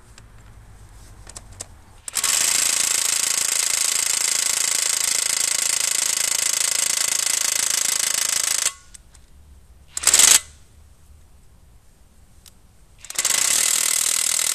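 Draper Expert XP20 20 V brushless 3/4-inch cordless impact wrench hammering at a seized 1.5-inch nut that has not been undone in some 60 years. After a few light clicks, a sustained burst of hammering starts about two seconds in and lasts about six and a half seconds. A brief blip comes around ten seconds, and another sustained burst starts near the end.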